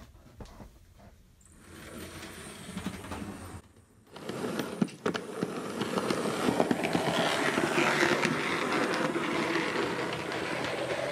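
Model train running on layout track close to the microphone: a rolling rumble with a rapid patter of small wheel clicks over the rails. It starts after a brief break about four seconds in and grows louder.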